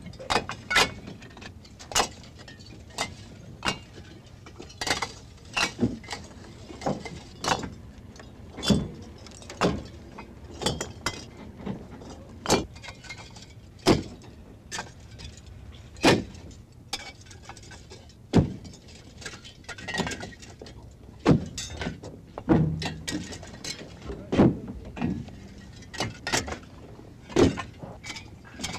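Hollow fired-clay blocks knocking and clinking against each other as they are picked up and stacked by hand. The sharp knocks come about once a second at an irregular pace.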